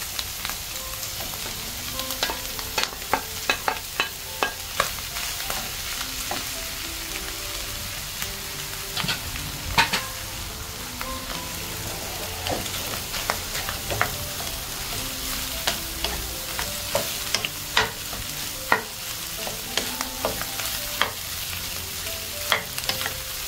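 Rice being stir-fried in a hot oiled pan with egg, bacon and char siu: a steady sizzle, with a spatula scraping and knocking against the pan many times at an irregular pace as the rice clumps are broken up.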